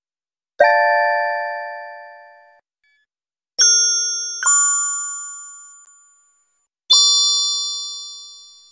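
Four bell-like chime notes, each struck sharply and ringing out as it fades. The first is cut off abruptly after about two seconds, the second and third come close together near the middle, and the last rings on to the end.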